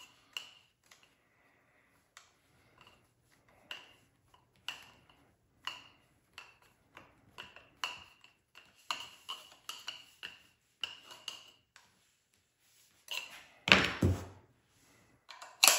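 Steel Allen key ticking and clinking with a slight ring as it is turned in a pistol-grip screw going into a nylon chassis, short ticks about once a second. About two seconds before the end, a louder clatter as the key is set down on the wooden tabletop.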